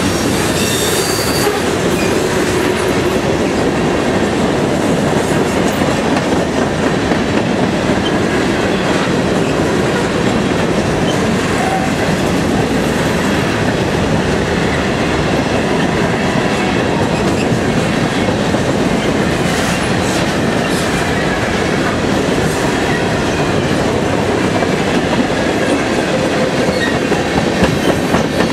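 Freight train's hopper cars rolling past close by: a loud, steady noise of steel wheels running on the rails.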